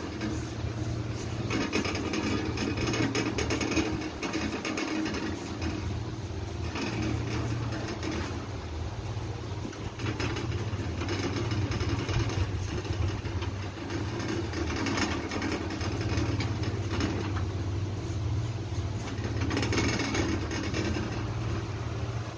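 A machine running steadily with a low, even hum, and a hiss above it that swells and eases every few seconds.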